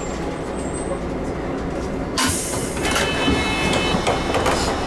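Toyohashi Railway Mo 800 tram running, a steady low rumble of the car on the rails. About two seconds in comes a sudden short hiss, followed by a high whine of several pitches held to the end.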